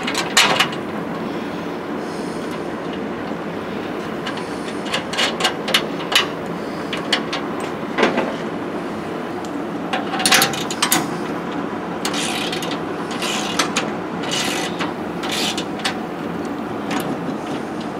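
A wrench tightening the nut and bolt on a steel sunshade mounting bracket, with scattered metallic clicks and clinks in short clusters over a steady background noise.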